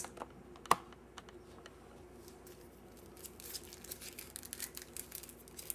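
Thin plastic stencil mask being handled: a sharp click less than a second in, then faint crinkling and light ticking that get busier in the second half.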